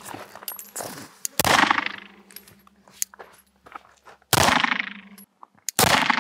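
Springfield Prodigy 1911 DS pistol fired one-handed: three single shots at uneven spacing, the last two closer together, each followed by a ringing, echoing tail. Faint high metallic tinks fall between the shots.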